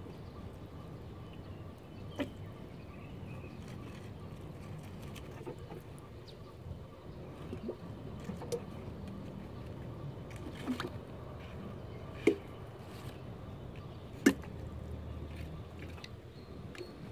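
Water sprinkling from a watering can onto potted strawberry plants and soil, over a steady low rumble. A few sharp clicks stand out, the loudest two near the end.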